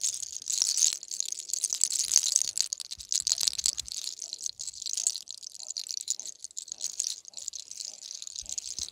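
Hair cracking: a twisted lock of hair is rolled between the fingers and pulled, giving a dense run of fine, crisp crackles. The crackling is heaviest in the first three seconds or so and thins out after that.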